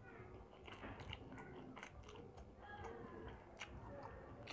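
Faint mouth sounds of chewing a mouthful of Singapore noodles, with small wet clicks scattered throughout.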